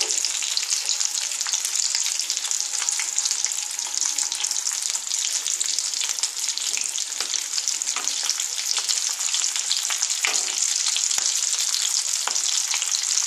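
Breaded egg chops deep-frying in a pan of hot oil on a low flame: a steady sizzle with dense fine crackling. A metal spatula turning them gives a few light scrapes and knocks, the clearest around eight and ten seconds in.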